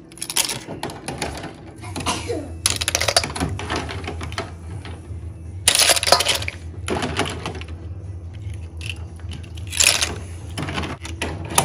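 Hard objects clattering and clinking in a run of sharp clicks, with a few louder rattling spells, over a low steady hum.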